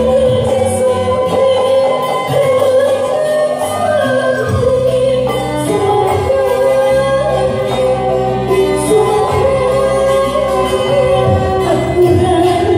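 Music with singing: a melody of long held notes stepping up and down in pitch over steady accompaniment.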